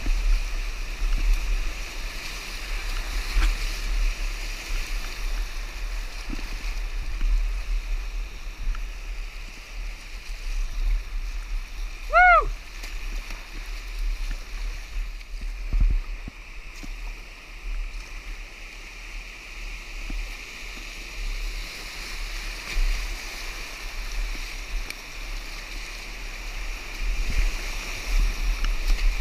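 Whitewater rushing and splashing around a kayak running a Class 3 rapid, heard up close from the boat, with a low rumble on the microphone and occasional sharper splashes.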